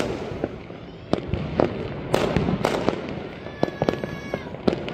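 Fireworks going off: an irregular series of sharp bangs, about ten in all and some in quick clusters, with crackling in between.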